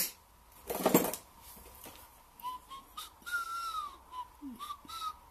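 A person whistling: a string of short notes, with one longer arching note among them, beginning about two and a half seconds in. Before that come two short loud rushes of noise, one at the start and one about a second in.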